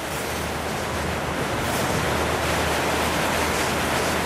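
Strong wind buffeting the microphone: a steady rushing noise that grows a little louder after the first second or so.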